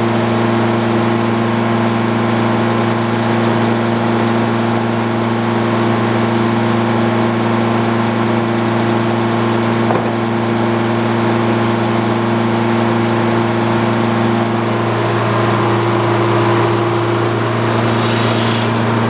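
A motor running with a steady low hum. The pitch sags slightly a few seconds before the end, and a brief hiss comes near the end.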